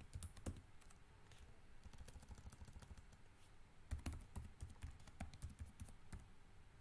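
Faint typing on a computer keyboard: a run of quick key clicks, busiest from about four seconds in.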